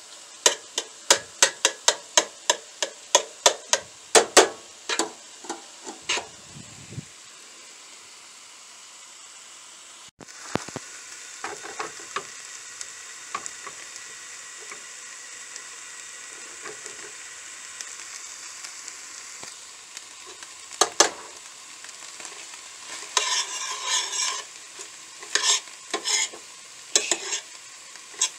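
Ground chicken with onion, tomato and peppers frying in a stainless steel skillet, stirred with a metal spoon. The spoon clicks against the pan about three times a second at first. Later there is a steady sizzle with scattered clinks and another bout of stirring near the end.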